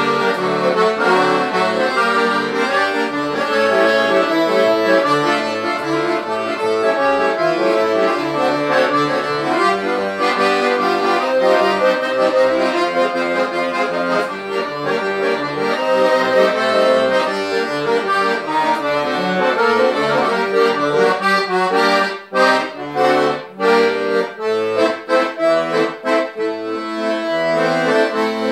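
Piano accordion playing a tune with melody over held chords; in the last several seconds it breaks into short, detached chords with brief gaps between them.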